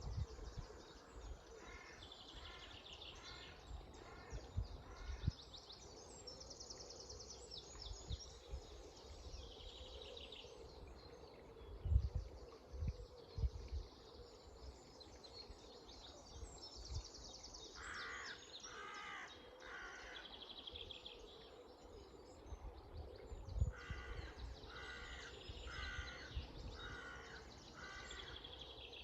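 A crow cawing in three runs of harsh calls, about two a second, over high-pitched songbird trills and the steady rush of flowing river water. A few brief low thumps stand out, the loudest about twelve seconds in.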